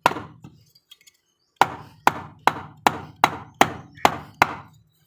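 Sharp knocks of a washing machine motor's end plate being struck on a wooden block to drive out its worn front bearing: one knock, then after a short pause a run of eight steady knocks a little over two a second, each with a brief ring.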